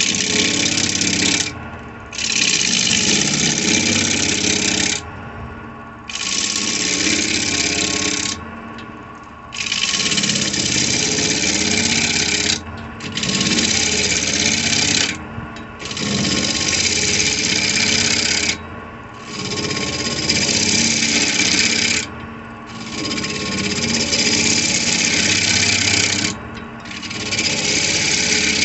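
A 5/8-inch bowl gouge cutting into a spalted birch bowl blank spinning on a wood lathe at about 680 RPM, rounding the rough blank in repeated passes. Each pass lasts two to four seconds, with short breaks between them while the lathe keeps running.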